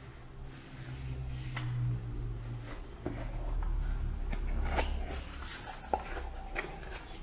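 Cardboard box being handled and opened by hand: scraping and rubbing of cardboard with several sharp clicks and taps as the end flap is worked open. A steady low hum runs underneath.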